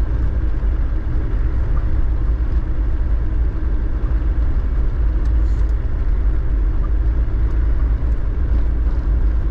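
Land Rover Defender driving at a steady pace: a constant low rumble of engine and road noise.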